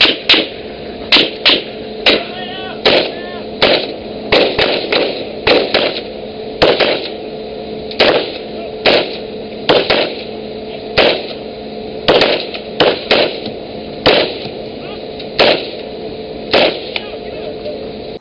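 Rifle fired in single shots from a ship's rail, about twenty sharp reports at irregular intervals of roughly half a second to a second and a half, over a steady hum.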